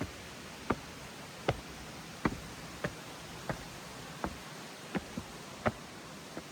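Footsteps at an even walking pace, about three steps every two seconds, sharp and distinct over a steady hiss of rain.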